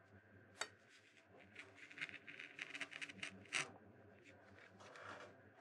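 Small hand carving knife cutting into a wooden printing block: a sharp click about half a second in, then a run of short, faint scratching cuts for a couple of seconds, with a few weaker ones near the end.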